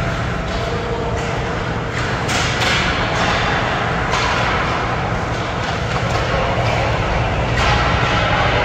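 Ice hockey practice on a rink: skate blades scraping the ice and several sharp knocks of sticks and pucks over a steady background noise.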